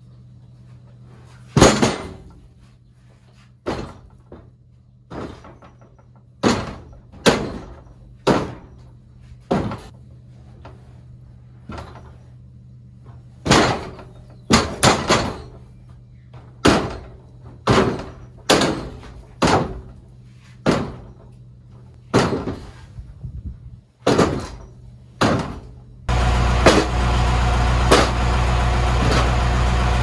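Freshly sawn pine boards and timbers being knocked and dropped onto the mill bed and a pile, with about twenty sharp wooden clacks roughly a second apart over the low steady idle of a band sawmill's engine. About 26 seconds in, the Norwood LumberPro sawmill's engine runs up to a loud, steady run.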